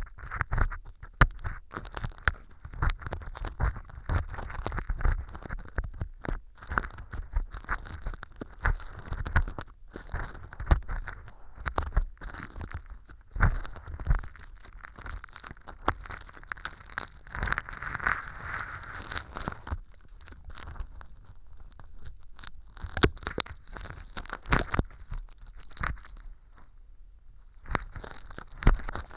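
Stainless steel ear pick scraping and digging through fake earwax of styrofoam powder and sawdust in a transparent ear tube. It makes a dense run of crackly scrapes, popping crunches and sharp clicks.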